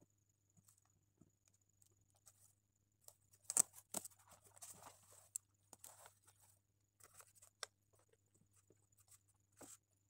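Objects handled on a desk: a few sharp clicks and taps, the loudest pair about three and a half seconds in, with a short stretch of paper rustling just after, as a hand moves a pen and papers about.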